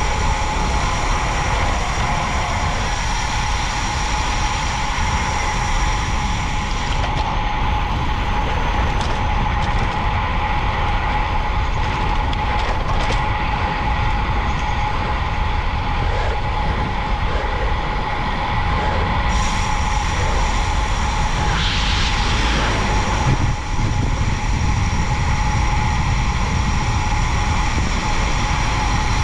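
Wind rushing over the camera microphone of a moving road bike: a loud, steady rumble with a constant hum over it. There is a short hiss about two-thirds of the way through.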